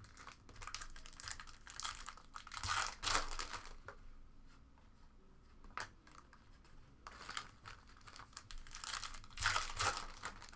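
Foil wrappers of trading-card packs being torn open and crinkled in the hands, in two bouts with a single click between them.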